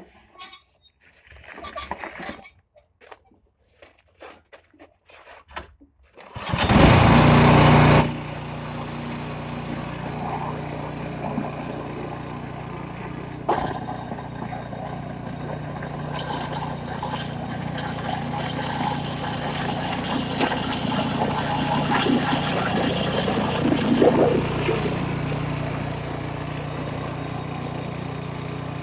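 A few scattered knocks and scrapes, then a snowblower's small engine starts about six seconds in, runs loudly for a moment and settles into steady running.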